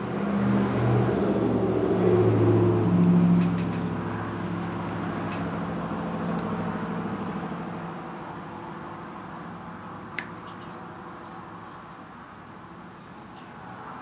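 A motor vehicle's engine running, swelling up in the first few seconds and then slowly fading away as it passes, with a single sharp click about ten seconds in.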